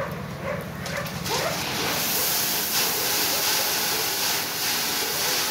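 Gravel sliding and pouring out of the raised bed of a tipping dump truck: a steady rushing hiss that sets in about two seconds in. Dogs bark briefly at the start.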